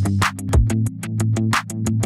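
Electronic background music with a steady beat: fast repeating synth notes over a deep kick drum that falls in pitch about once a second.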